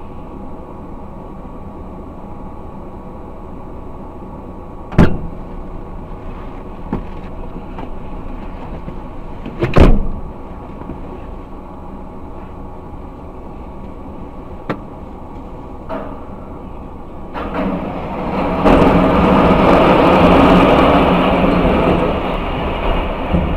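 Vehicle engine running steadily, with two sharp loud bangs about five and ten seconds in. A much louder rumbling noise builds up past the middle and fades slightly near the end.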